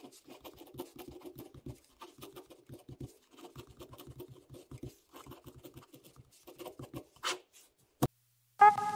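Ballpoint pen scratching on paper in quick, short strokes as letters are written by hand, with one longer stroke about seven seconds in and a sharp click near the end.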